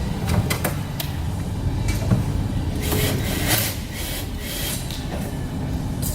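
Clicks and knocks of a metal lateral file cabinet's drawer and anti-tip clip being handled, a few sharp ones spread through, over a steady low rumble.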